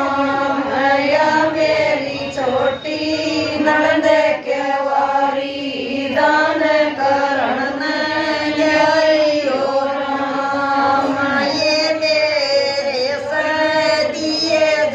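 A group of women singing a Haryanvi folk bhajan together in unison, with long, drawn-out held notes.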